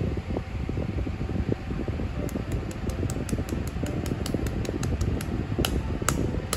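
Steady, fan-like mechanical hum with a low rumble. From about a third of the way in comes a faint, quick ticking, a few ticks louder near the end.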